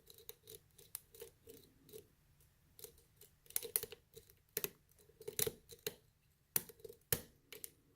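Irregular small metallic clicks and scrapes from a picked pin-tumbler lock and its picking tools being handled, with a few sharper clicks in the second half.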